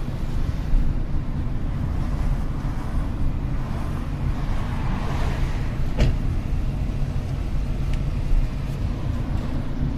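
Car engine and road noise heard from inside the cabin, a steady low rumble. A brief swell of louder noise builds about halfway through, and a single sharp click comes about six seconds in.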